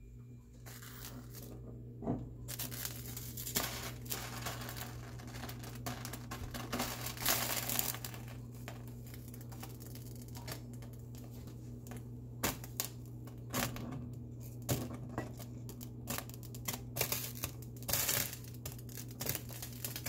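Beaten egg and cheese mixture sizzling and crackling in a nonstick frying pan over medium heat, a steady hiss with many small pops, over a steady low hum.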